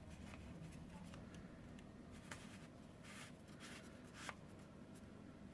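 Faint handling of hard plastic: the Nest Protect alarm's mounting backing plate being fitted to its back, with light scrapes and a few small clicks, the sharpest about four seconds in.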